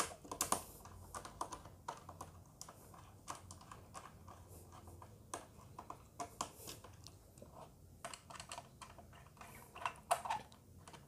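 Faint, irregular small clicks and taps of hands handling wires at a rewirable fuse carrier on a wiring board, as the Y-phase wire is fitted into the carrier.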